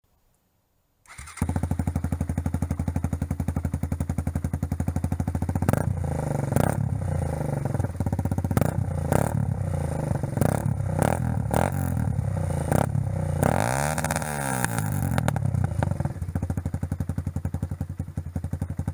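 2015 Suzuki DR200SE single-cylinder four-stroke running through an aftermarket DG-R series muffler. It starts about a second in and idles, takes a string of quick throttle blips, then one longer rev that rises and falls, settles back to idle, and stops near the end.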